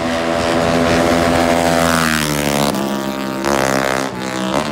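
Racing motorcycle engine running at high revs, its note sliding slowly down, dropping sharply about halfway through, then rising in two quick revs near the end.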